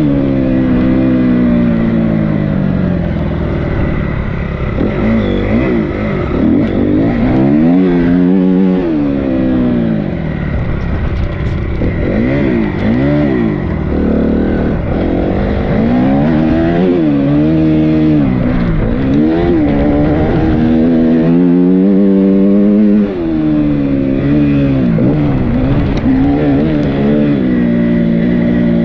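Dirt bike engine heard from the rider's seat, revving up and dropping back again and again as the rider works the throttle and gears along a snowy track.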